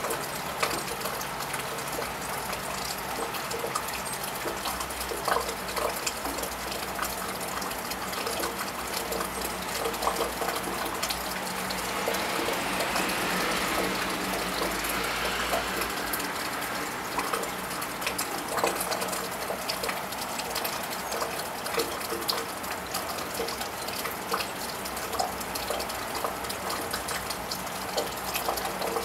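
Steady rain falling, with many individual drops and drips ticking close by. About halfway through, a car passes on the wet road, its tyre hiss swelling and then fading.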